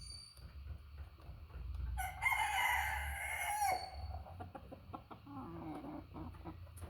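A rooster crows once, a call of nearly two seconds that drops in pitch at its end. Softer, lower clucking follows.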